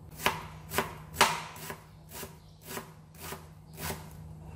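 Kitchen knife chopping an onion on a cutting board: about eight sharp strikes, roughly two a second, the first few the loudest.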